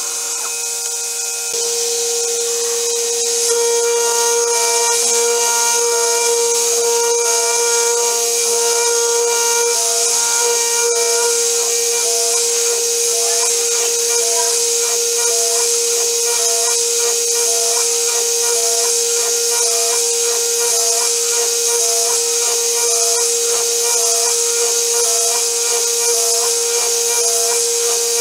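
Spindle of a home-built CNC mill running with a steady high whine as a 4 mm end mill cuts a small metal wheel rim, over a steady hiss from the coolant spray nozzle. The cutting gets louder a few seconds in.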